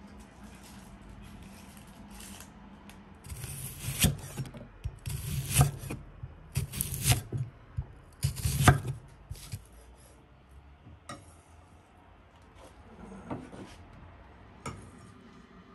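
Large kitchen knife slicing a red onion into rings on a wooden cutting board: a quick run of crisp cuts, each knocking on the board, a few seconds in. After it come a few sparse, fainter cuts.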